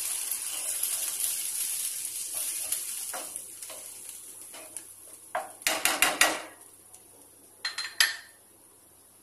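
Curry sizzling in a hot pan as water is poured in, the hiss fading away over the first few seconds. Then a spatula stirs and knocks against the pan, with a quick cluster of sharp clinks about six seconds in and another couple of knocks about eight seconds in.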